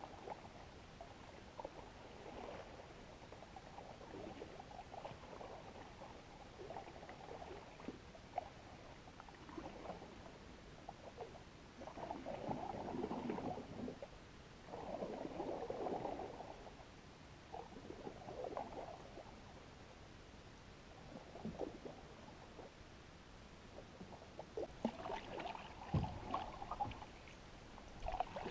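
Canoe paddle strokes in calm lake water: faint swishes and splashes every couple of seconds as the blade is pulled through. A few sharp knocks come near the end.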